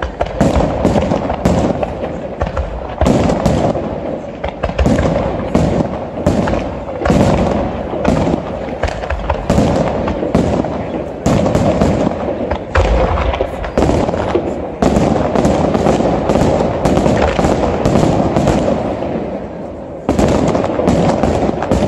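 Aerial fireworks display in full barrage: firework shells bursting in quick succession, several sharp reports a second without a break, over a continuous noisy rush. The reports ease briefly near the end, then start again.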